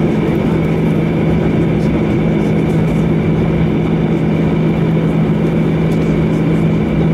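Airbus A321's CFM56 jet engines at idle thrust, heard from inside the cabin over the wing as the aircraft taxis onto the runway: a steady low drone with a fainter high whine and no spool-up.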